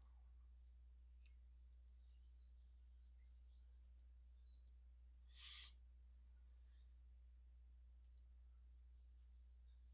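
Faint computer mouse clicks, several in quick pairs, over a steady low electrical hum. A short, soft rush of noise, like a breath, about five and a half seconds in.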